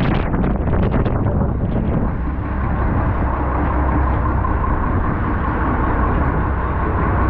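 Bus engine running steadily close by: a constant low drone with a steady hum. Wind buffets the microphone in the first second or two.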